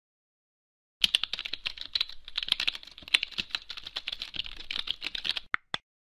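Typing on a computer keyboard: a quick run of key clicks starting about a second in, ending with two separate clicks.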